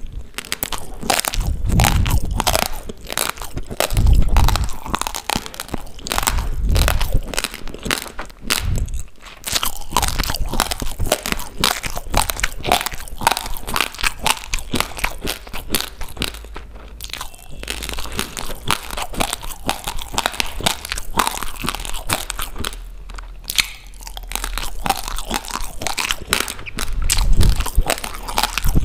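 Close-up crunching and chewing of raw rice grains in the mouth: a fast, continuous run of dry, gritty crunches as mouthful after mouthful is bitten and ground.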